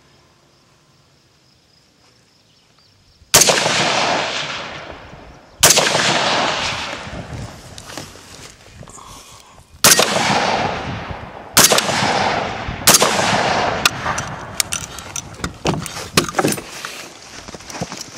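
AR-15-style rifle fired five single shots at slow, uneven intervals after about three seconds of quiet. Each shot is followed by a long echo fading away. Lighter clicks and knocks follow near the end.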